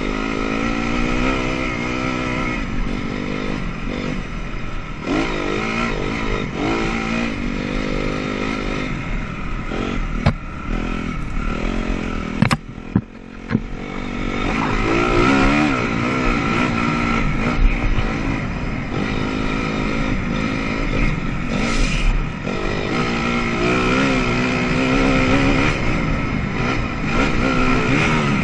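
Honda CRF250R dirt bike's single-cylinder four-stroke engine revving up and down as it is ridden hard. Around the middle the revs drop off briefly, with a few sharp knocks, before the engine pulls hard again.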